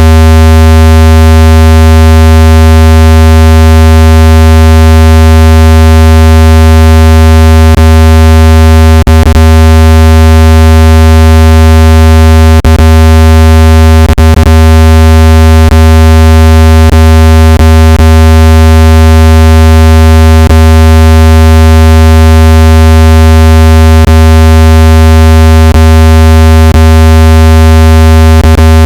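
Loud, steady, low-pitched synthetic test tone, a speaker-cleaning tone meant to shake water out of a phone speaker. It is buzzy with many overtones and is broken by about a dozen faint clicks at irregular moments.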